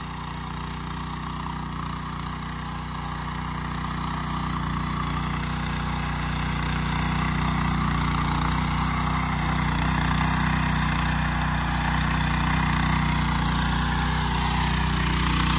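Walk-behind motor hoe (rotary garden tiller) engine running steadily as its tines churn the garden soil, growing gradually louder.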